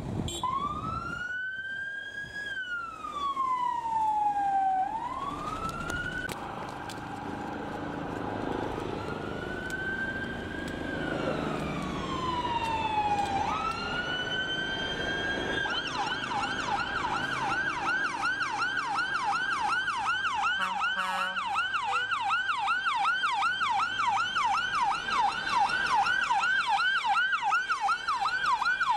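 Electronic sirens on UK fire service vehicles responding on blue lights. For about the first 15 seconds the siren is on a slow wail, each sweep rising and falling over a couple of seconds. It then switches to a fast yelp of about three sweeps a second. Engines of the passing vehicles run beneath the siren in the middle.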